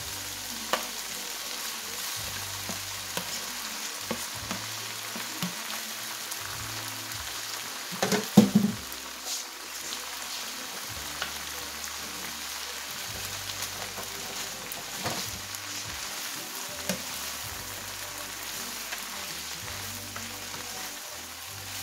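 Pinto beans, onions and chunks of ham sizzling in a hot skillet, a steady frying hiss dotted with small clicks. About eight seconds in there is one louder clatter, and near the end a spatula stirs through the pan.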